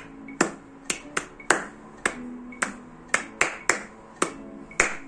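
Hand claps, about eleven at roughly two a second, standing in for the spelled-out letters H-E-A-R-T in the last verse of a children's spelling song.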